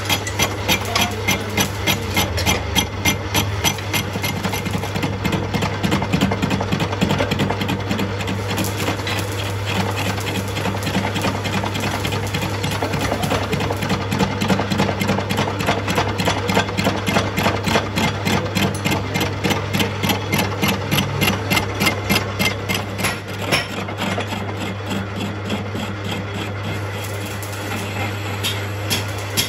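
Engine lathe running while turning a cultivator disc-harrow hub: a steady low hum under a regular ticking, about three ticks a second.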